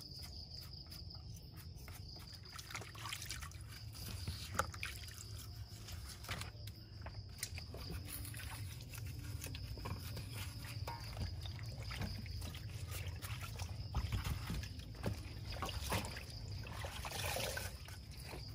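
Crickets trilling steadily in the background while fruit and vegetables are handled in water: light trickling and sloshing, with scattered small clicks and scrapes as a knife peels fruit.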